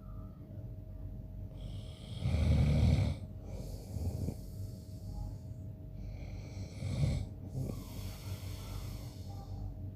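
A man snoring in his sleep. There is a loud, low snore about two seconds in lasting about a second, then a breathy hiss. A second, shorter snore comes around seven seconds in, followed by another long breath.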